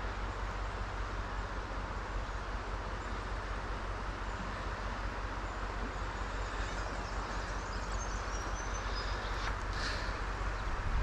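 Shallow river water rippling over rocks, a steady rushing, with a low rumble of wind on the microphone underneath. A few faint high bird chirps come near the end.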